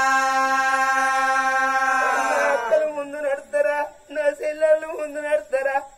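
A singer in a Telugu Oggu Katha folk-ballad performance holds one long note for about two and a half seconds, then breaks into short, quickly chanted syllables.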